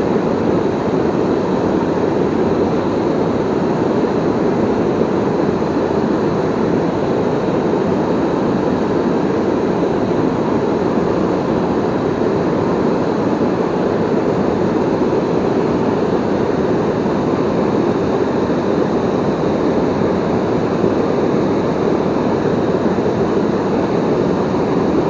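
Steady rush of water pouring over a river waterfall, an even sound that holds one level throughout.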